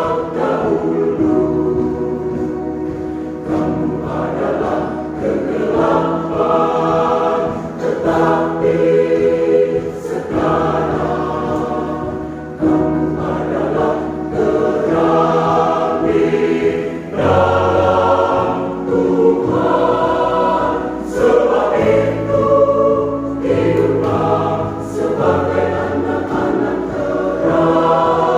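Church choir singing a sacred choral song, many voices together in sustained phrases.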